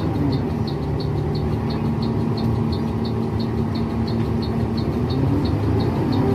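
A bus's engine running steadily, heard inside the cabin, with the turn-signal indicator ticking in short high clicks about three times a second.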